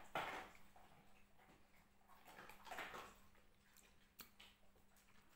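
Quiet drinking from a glass jar: a soft gulp or breath just after the start, another near three seconds, and a small click a little after four seconds.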